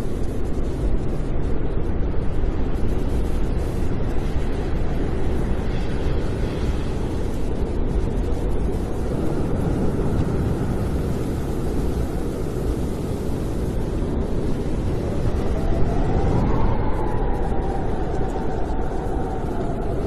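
Snowstorm wind blowing in a steady low rush, with a faint whistle that glides up and down, clearest a little past the middle.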